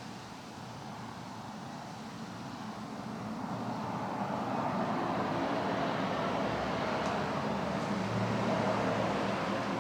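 Passing road traffic: a vehicle's engine and tyre noise growing steadily louder over the first few seconds, then holding.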